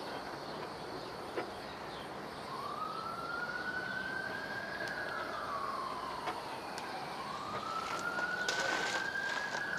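A siren wailing in the background, two slow cycles that each climb, hold at the top, then slide back down. A steady hiss and a few faint sharp clicks lie beneath it.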